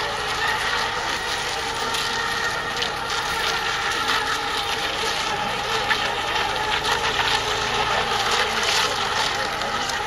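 Several electric radio-controlled racing boats running together at a distance, a steady whine of several overlapping motor tones over a noisy hiss.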